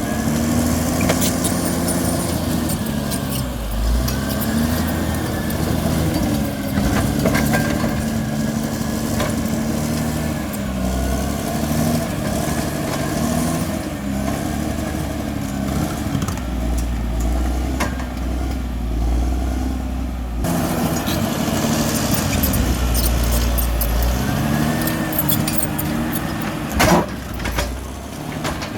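Bulldozer's diesel engine working, its pitch dipping and rising again and again with the load, with scattered clanks and a sharp knock near the end.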